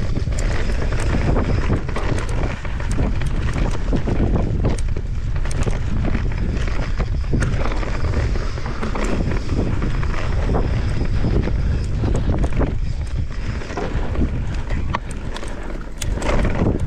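Wind buffeting the microphone and tyre rumble of a Santa Cruz Megatower enduro mountain bike descending a dirt singletrack at speed, with many sharp clicks and rattles from the bike over bumps.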